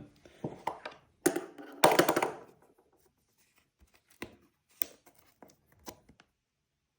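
Scraping and tearing at a sticker seal on a cardboard box, loudest in the first two and a half seconds, followed by a few light taps and clicks.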